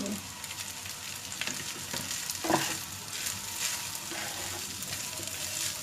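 Fried rice sizzling in a hot pan, with a spatula scraping and knocking against the pan now and then as it is stirred.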